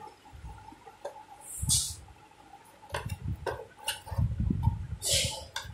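Light clicks and handling rustles as wires and crimped spade connectors are pushed onto the terminals of a mixer grinder's rotary speed-regulator switch, with a couple of short hissing rustles.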